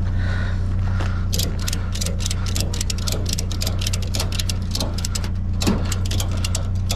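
Ratchet strap being cranked tight to hold down a load, its ratchet clicking rapidly, several clicks a second, starting about a second in.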